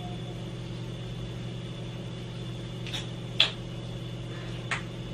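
Steady low hum of room background noise, like a fan or electrical hum, with three small clicks about three, three and a half and nearly five seconds in, the middle one the loudest.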